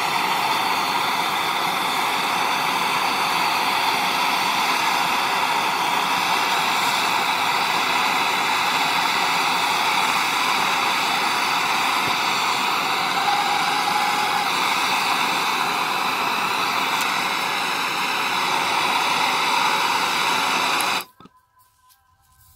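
Handheld gas torch flame hissing steadily while it heats copper fittings to sweat (solder) the joints. The hiss shuts off suddenly near the end.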